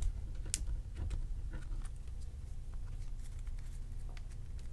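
Baseball trading cards being handled: a stack tapped square on the table, then cards shifted through the hands, giving scattered light clicks and taps over a low steady background hum.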